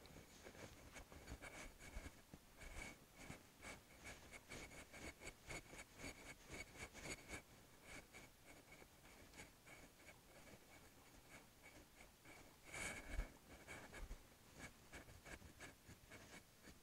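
Cloth wiping a glass lightboard: a faint run of quick rubbing strokes, with a louder stretch of rubbing about 13 seconds in.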